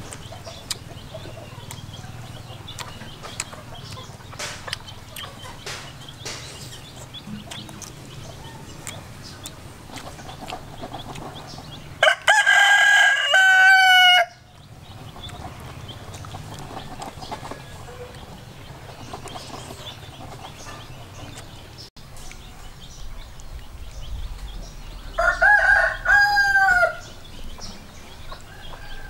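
A rooster crows twice, about twelve seconds in and again near the end, each crow about two seconds long, ending in a falling note.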